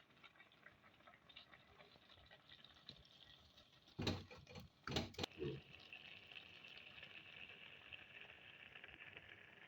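Carrot halwa sizzling faintly in a kadai, with a few sharp knocks about four and five seconds in.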